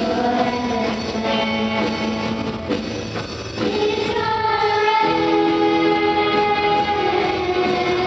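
Live worship song: voices singing long held notes over guitar and an electronic drum kit. The music grows fuller a little past a third of the way in.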